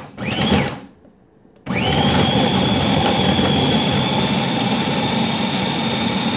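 Food processor motor pulsed once briefly, then after a short pause switched on again and running steadily with a high whine. Its blade is cutting cold butter into almond flour and flax seed to make coarse crumbs.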